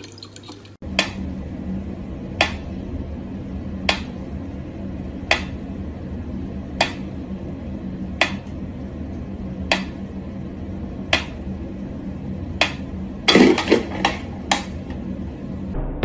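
Mechanical pyramid metronome ticking slowly and evenly, about one tick every second and a half, over a steady low hum. Near the end comes a brief, louder burst of noise.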